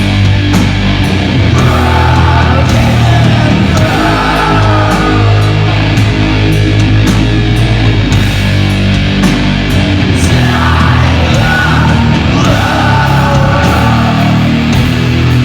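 Doom metal band playing live, loud: heavy, slow guitars and bass with drums and cymbals, and a sung vocal line coming in four times.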